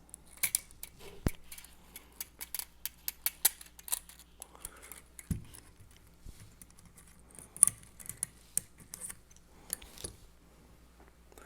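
Irregular sharp clicks and ticks of small metal parts being handled, as a gas-blowback airsoft magazine's spring is fed down onto an Allen wrench. The clicks come thickest in the first few seconds and again later on, with one dull knock about five seconds in.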